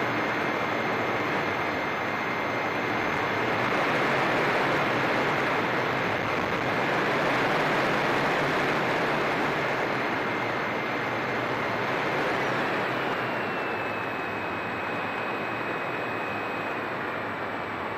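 Steady wind noise over a camera mounted on a flying model airplane, with the thin whine of the plane's motor underneath. About two-thirds of the way through the whine steps up in pitch, then eases down slightly near the end.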